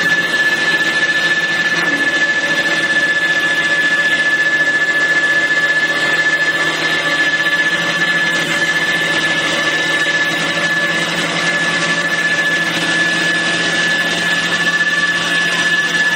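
CNC wood lathe running while turning a wooden sofa leg, with a steady high whine over a constant rushing noise.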